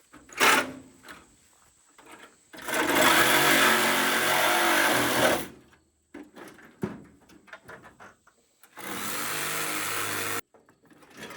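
Reciprocating saw cutting metal in two trigger-on runs, a loud one of about three seconds, then a softer, shorter one. A sharp knock comes just before the first cut.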